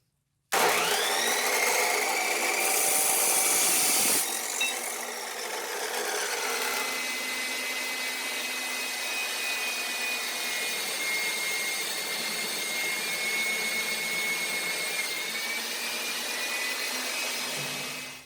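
Electric power tool cutting metal bar stock: it spins up about half a second in, runs loudest and harshest for the first few seconds, then runs steadily with a high whine until it stops near the end.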